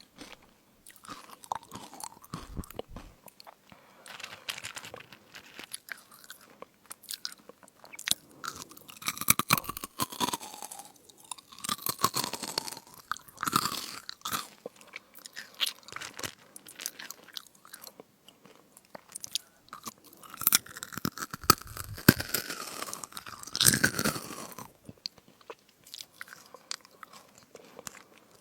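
Close-miked crunching and chewing of crisp fruit snacks, in irregular bites and crackles, louder in spells in the middle and again shortly before the end.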